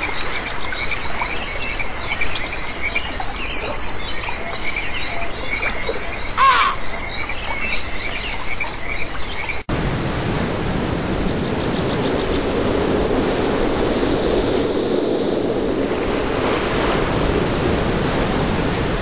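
A chorus of frogs calling in rapid, repeated chirps, which cuts off abruptly about halfway through and is replaced by a steady rushing noise.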